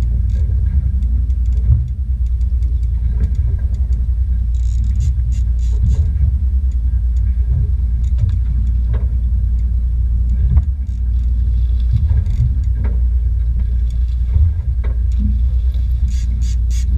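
Fishing boat's engine running with a steady low rumble, with a few light knocks and brief splashy hiss over it.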